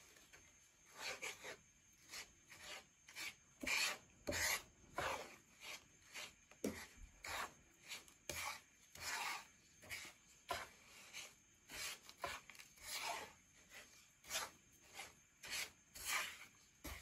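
Wooden spatula stirring dry, still-unmelted white sugar around a nonstick frying pan: repeated gritty scraping strokes, about one or two a second.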